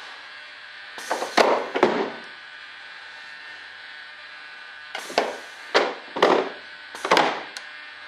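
Pneumatic retractable main landing gear and gear doors on a scale RC jet cycling on 100 psi of air. There are short hisses of air and clunks as the gear extends about a second in, then another run of hisses and clunks as it retracts, from about five to seven and a half seconds in. The gear does not go fully up, which the builder puts down to foam in the way.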